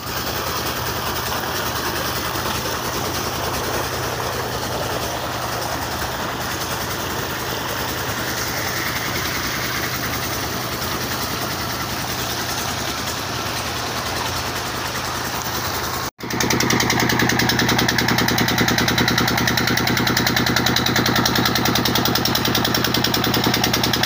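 Tubewell pump engine running steadily while its water gushes into the concrete tank. After a cut about two-thirds of the way through, the engine is louder, with a fast, even beat.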